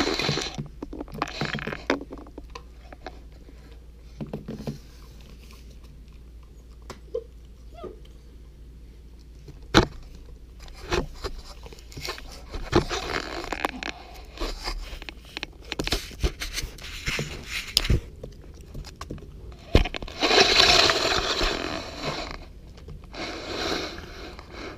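Puppy eating dry kibble from a stainless steel bowl on a tile floor: irregular bouts of crunching, with the metal bowl scraping and clinking on the tiles and a few sharp knocks.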